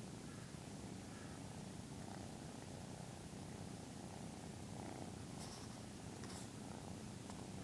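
13-week-old Maine Coon kitten purring steadily, close to the microphone, with a couple of faint clicks about two-thirds of the way through.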